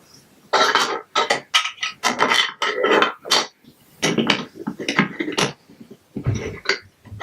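Plastic Lego Duplo bricks clattering and clicking together in quick, irregular bursts as they are handled and fitted.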